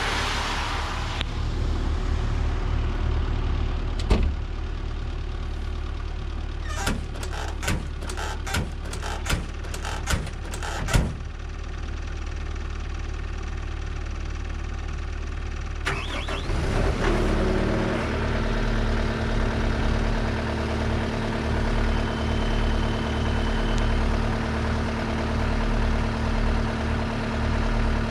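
A car passes at the start, and a run of sharp knocks and clicks follows partway through. About halfway through, a Caterpillar mini excavator's diesel engine cranks, catches and settles into a steady idle.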